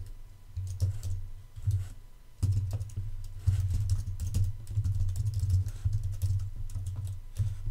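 Typing on a computer keyboard: irregular runs of keystroke clicks, with a short pause about two seconds in.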